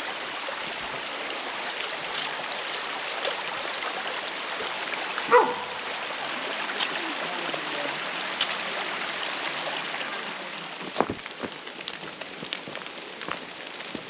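Steady rain falling: an even hiss with scattered drops tapping close by. A short pitched sound about five seconds in. Near the end the hiss eases and single sharp taps stand out.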